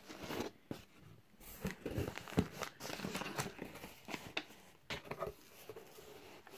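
Cardboard shipping box being opened: the flap lifted and brown kraft packing paper rustling and crinkling as it is handled, in irregular bursts with a few sharp knocks.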